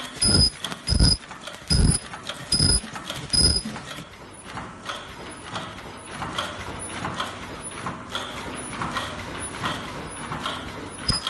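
Automatic mask-making machine running. For the first four seconds it thumps about every 0.8 s, in step with its rated 80–90 masks a minute, each thump with a brief high whine. After that comes a steadier clatter from the line.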